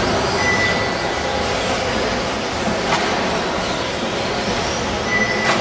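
Electric 2WD RC buggies racing: a dense, steady racket of motors whining up and down in pitch and tyres on the track surface, with two sharp clicks, one about halfway and one at the end.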